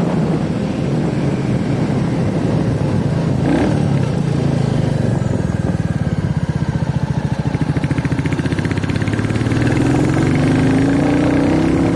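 Royal Enfield Classic 350's single-cylinder engine running through its stock exhaust with an even thumping beat. The revs climb from about ten seconds in.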